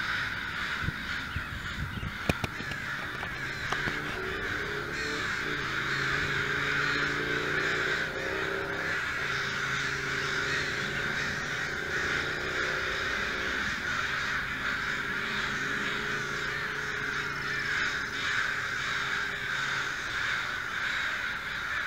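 A flock of American crows cawing over one another without pause, a dense chorus of many birds at once. A low steady hum runs underneath for most of it, and a few knocks sound near the start.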